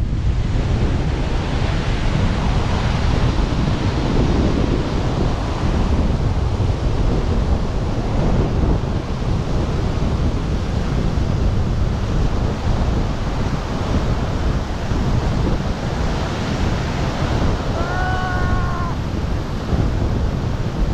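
Rushing airflow over a wingsuit pilot's helmet-mounted camera in flight: a loud, steady roar of wind on the microphone. About 18 seconds in, a short pitched call sounds for about a second over the roar.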